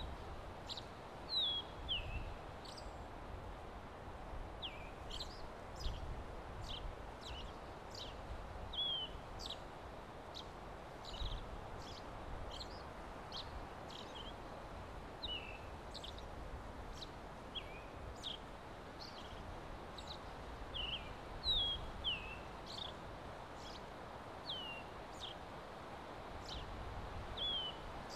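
Birds chirping: short, high notes one or two a second, some sliding down in pitch, over a steady rustle of wind in the trees.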